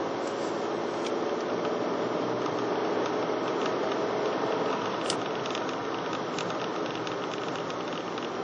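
Steady tyre and engine noise of a car driving on the road, heard from inside the cabin. From about halfway through, light irregular rattling clicks sound over it.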